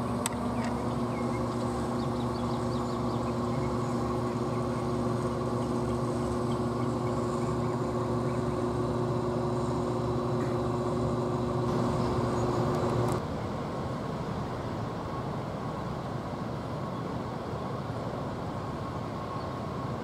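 A steady mechanical hum with several held tones over an outdoor rumble. The hum cuts off suddenly about thirteen seconds in, leaving an even, duller rumble.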